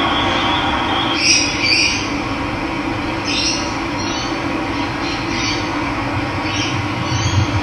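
Steady rush of running water with a bird giving a series of short, harsh calls, about one a second. A thin, steady high tone fades out about a second in.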